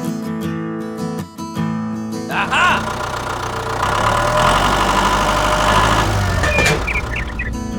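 Acoustic guitar music breaks off about two seconds in. For about five seconds a machine runs with a loud, dense, rattling noise and a low rumble, most likely the small DIY wheat thresher. The guitar music then returns.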